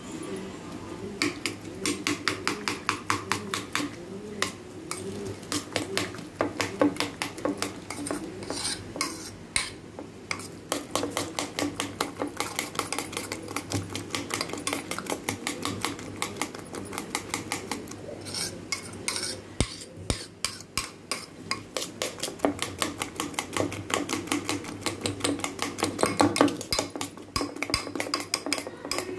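Eggs and chopped vegetables being beaten with a steel spoon in a stainless steel bowl: quick metal clinks of the spoon against the bowl, several a second, with the wet slap of the egg mixture.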